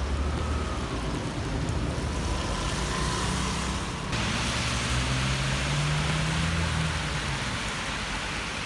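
Road traffic in a downpour: car engines running in slow, queued traffic over a steady hiss of rain and tyres on water-covered asphalt. About four seconds in, the hiss turns suddenly louder and brighter.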